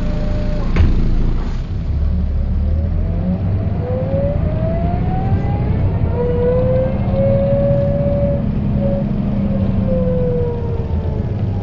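Mercedes-Benz O408 bus's OM447hLA turbo diesel engine running under the floor, with a gear whine that rises in pitch as the bus picks up speed, holds steady, then falls as it slows. The whine is typical of the rear axle's hub reduction gears. There is a single sharp knock about a second in.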